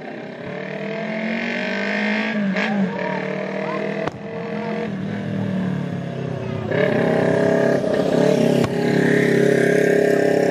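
A motor vehicle's engine running as it drives along the street close by, its pitch drifting and growing louder in the second half. A few sharp bangs from distant fireworks cut in.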